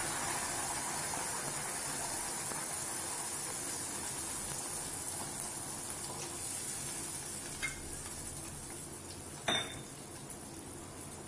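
Freshly ground coriander, coconut and green chilli paste sizzling in hot oil in a kadai as it is stirred, the sizzle slowly dying down. A ladle knocks against the pan twice in the later part, the second knock louder.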